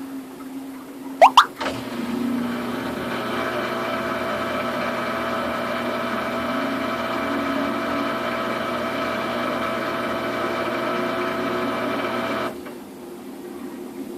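Samsung washing machine's drum motor running a spin-cycle stretch with a load of duvets: a steady whine with several fixed tones for about ten seconds, which cuts off suddenly near the end. A low steady hum runs throughout, and two short loud rising squeaks come about a second in, just before the motor starts.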